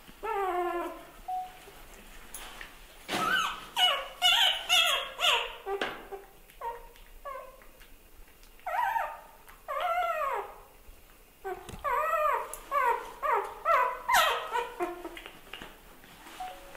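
A puppy whimpering and yelping: repeated high cries that rise and fall in pitch, coming in runs with short pauses.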